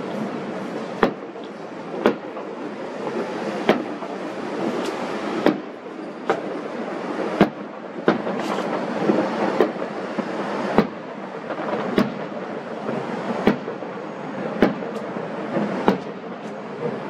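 Distant aerial fireworks going off: about a dozen sharp bangs at uneven intervals, roughly one every second or so, over a steady rushing background noise.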